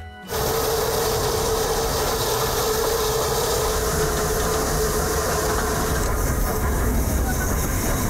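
Narrow-gauge steam train running: a steady hissing and rumbling noise that sets in abruptly just after the start. A faint steady tone runs under it and fades about six seconds in.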